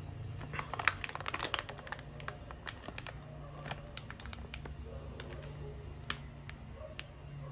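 Crinkly plastic snack bag crackling as it is handled and turned over in the hands: a dense run of sharp crackles for the first couple of seconds, then scattered ones.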